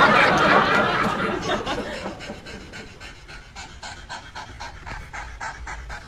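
A loud jumble of sound fades away over the first two seconds. Then a cat pants with its mouth open, in quick, even breaths about three a second.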